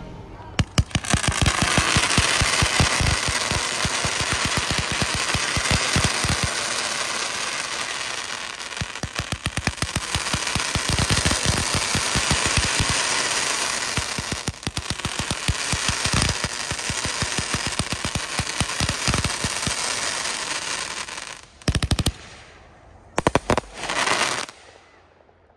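Sky Bacon Galaxia zipper cake firing a rapid, unbroken string of shots for about twenty seconds, then a few separate bursts before it stops.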